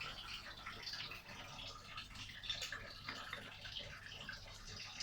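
Squid cooking in sweet and sour sauce in a pan: a faint steady sizzle with many small irregular crackles.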